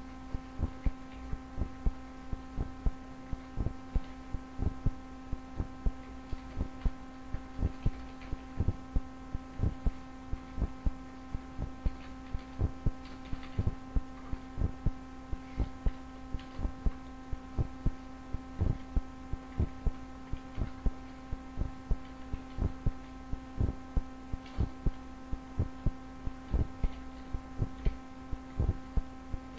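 Computer keyboard being typed on: irregular key clicks, a few a second, over a steady electrical hum.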